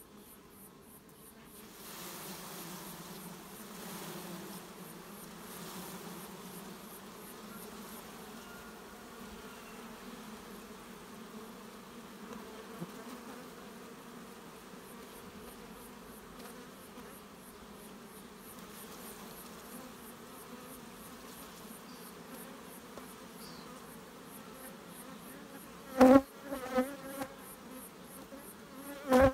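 Steady buzzing of a colony of Carpathian honey bees around an opened hive, with two loud knocks near the end.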